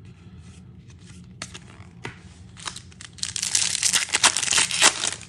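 Foil trading-card pack wrapper crinkling and tearing as it is opened, a dense crackle of about two seconds after a few light handling clicks.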